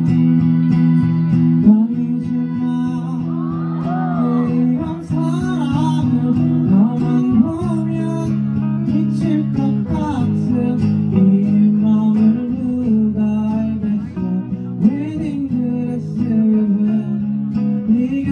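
Live music: acoustic guitar strummed and plucked, with a singer's voice coming in about three and a half seconds in and carrying the melody over the guitar.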